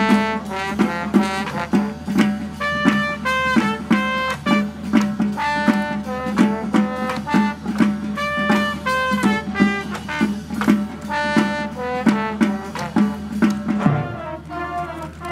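A high school marching band playing a jazz arrangement live: brass playing short, punchy chords over a steady drum beat of about two hits a second. Near the end the beat breaks off and a new phrase begins.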